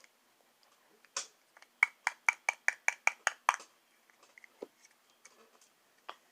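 A quick run of about eight sharp taps with a slight ring, about four or five a second, from a hard object striking something hard; a single softer knock comes just before them.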